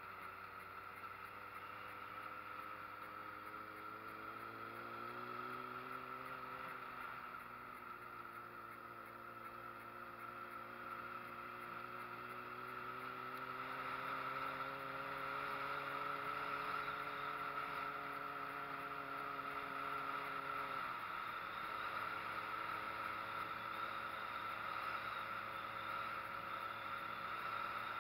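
Street motorcycle engine running under way on a climb, its pitch rising about five seconds in and then holding steady, before dropping sharply about three-quarters of the way through, over a steady rushing noise.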